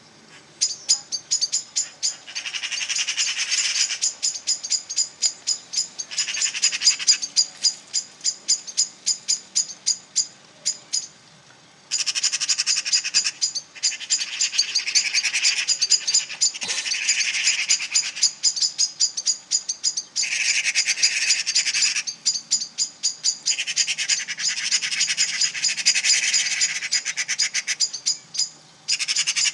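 Birds giving rapid, repeated sharp alarm calls, several a second, with louder stretches of dense scolding chatter and a brief pause partway through: birds mobbing a cat.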